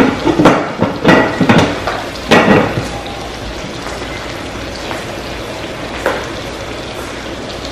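A few sharp metal clanks from a pot and its lid in the first two and a half seconds, then a steady sizzle of bacon frying in a pan.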